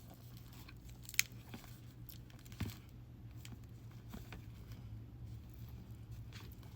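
Quiet handling of a library book's pages being leafed through, with soft paper rustles and two sharp clicks, about a second in and again near the middle, over a low steady hum.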